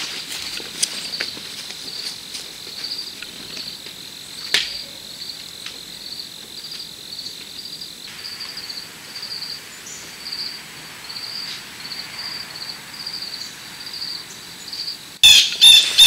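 Insects chirping in a steady rhythm of about two short high chirps a second, over a steady high tone that stops about halfway, with a few light knocks. Near the end, loud repeated squawking calls start.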